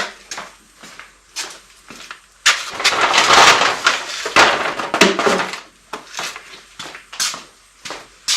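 Handling noise while hydraulic oil is added to the mower: a run of light knocks and clicks, and a louder noisy rustle lasting about three seconds in the middle.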